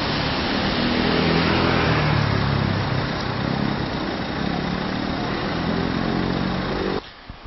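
A car engine running at low revs, its pitch wavering and rising slightly, over a steady hiss of street traffic noise. The sound cuts off suddenly near the end.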